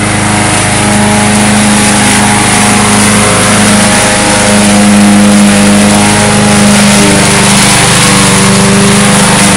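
Push-mower gas engine running steadily on a radio-controlled mower built on an electric wheelchair base, as the mower drives over grass and into weeds.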